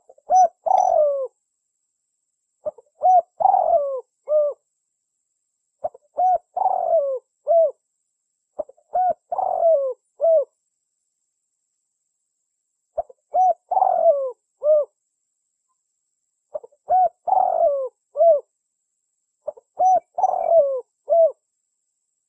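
Spotted dove cooing: seven phrases of several short coo notes each, about every three seconds, with a longer pause near the middle. It is a recorded call of the kind played to lure wild doves.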